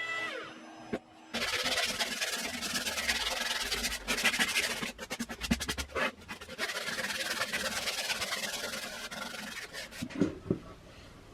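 Hand sanding or filing on a workpiece: a continuous rough rubbing and scraping that starts about a second in and stops near the end, followed by a couple of light knocks.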